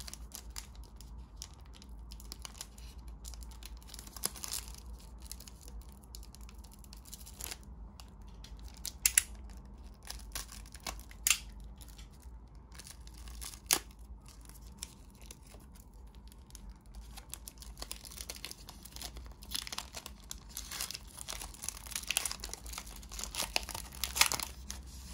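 A trading-card pack wrapper being torn and crinkled open by hand, a stubborn pack that won't tear easily. There are scattered sharp snaps, three loud ones in the middle, and the crinkling grows denser near the end.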